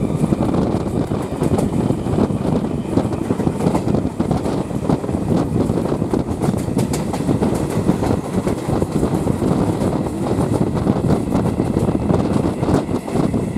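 Electric suburban local train (EMU) running at speed, heard from an open door: steady rumble of wheels on the rails with a continual irregular clatter of clicks.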